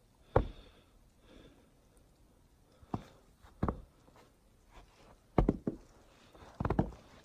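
Slow, uneven footsteps on the snow-covered wooden deck of a suspension bridge: a handful of dull thuds a second or so apart, with quiet between them.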